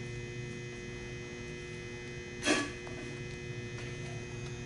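A steady electrical hum, with one short sharp sound about halfway through.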